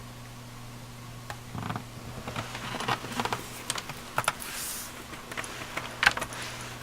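Keys of a Sanwa Supply SKB-MK2BK mechanical keyboard being pressed in irregular clicks, starting about a second in, with a brief rustle near the middle. A steady low hum runs underneath.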